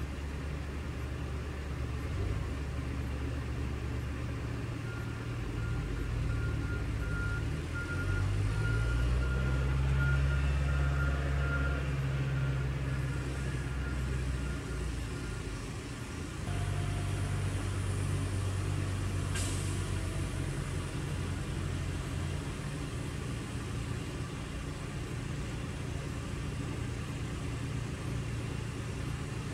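Engines of road-work machinery, including a tractor, running steadily. The rumble swells louder for several seconds near the middle, eases off, then picks up again, and a thin steady whine sits over it for a while.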